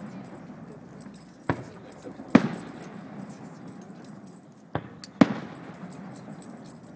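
Aerial fireworks shells bursting: four sharp bangs in two pairs, the second of each pair the louder, each dying away in an echoing tail.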